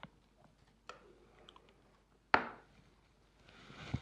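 Hands pulling apart and cleaning out a salted herring on a cutting board: soft wet squishes and small clicks, with one sharp knock a little past halfway and a brief rustle near the end.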